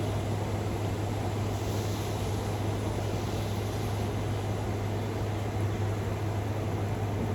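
Steady rain noise from a thunderstorm, even and unbroken with no thunder clap, over a constant low hum.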